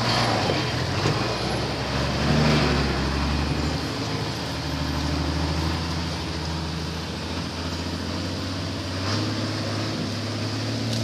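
Heavy diesel lorry engine running steadily, its note rising briefly about two seconds in and shifting again near the end.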